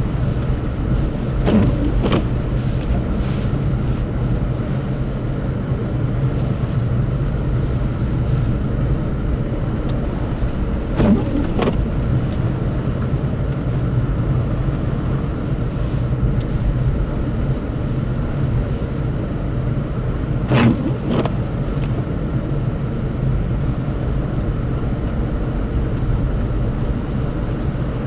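A vehicle engine running steadily with a low hum, with three brief louder sounds about ten seconds apart.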